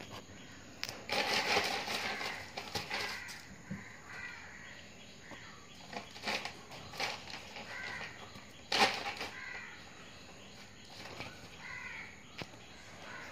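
A plastic sack rustling and crinkling in several bursts as kittens pounce on it and tug at it.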